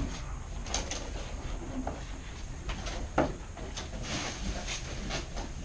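Rustling and scattered clicks of paper and tape being handled, with one sharper knock about three seconds in.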